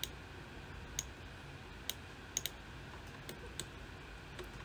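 Computer mouse clicks and scroll-wheel ticks: about eight faint, sharp clicks at irregular intervals over a low room hum.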